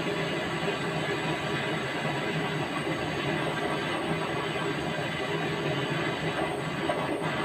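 Steady, unbroken machine noise with a hiss, holding an even level throughout.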